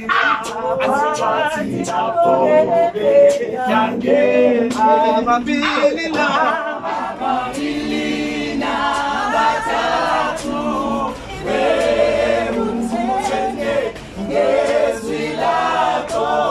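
A group of voices singing a cappella in harmony, several parts at once, with no instruments.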